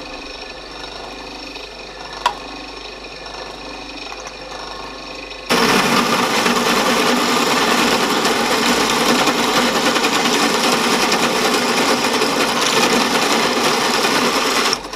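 Machine spindle running with a hole saw. About five seconds in, the saw bites into an aluminium casting and cuts loudly and steadily for about nine seconds, cutting off the casting's feeder, then stops near the end.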